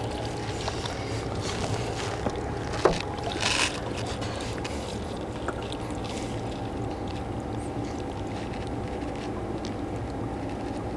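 Steady outdoor wind and lapping-water noise, with a faint steady hum. A sharp click comes about three seconds in and a brief hiss just after it.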